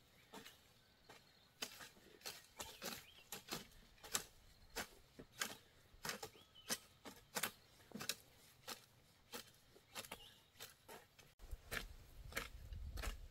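A run of sharp, irregular taps or knocks, about two to three a second, with a low rumble coming in near the end.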